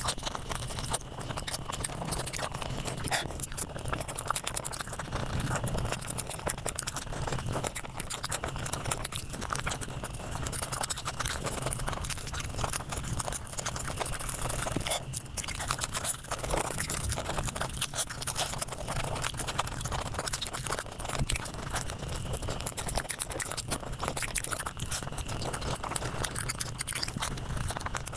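Close-miked eating sounds sped up five times: chewing and crunching run together into a dense, continuous crackle of quick bites and chews.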